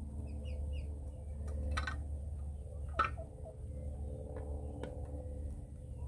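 A few sharp metallic clicks and taps as a steel gate latch and its washers are handled against a wooden post, the loudest about three seconds in. Faint bird chirps in the first second.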